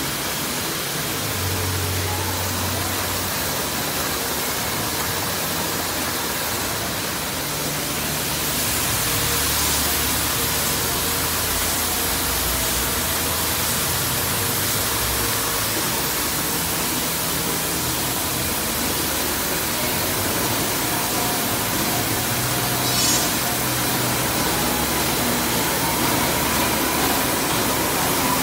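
Window-patching machine running, a steady even rushing noise from its rollers and film feed, with a short run of quick ticks late on.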